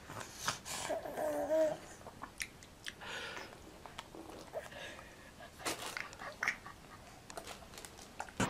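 A baby biting and sucking on a lemon wedge: scattered wet mouth clicks and smacks, with a short murmur from the baby about a second in.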